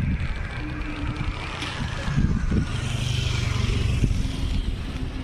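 Road traffic, motor vehicles running past with a steady engine drone.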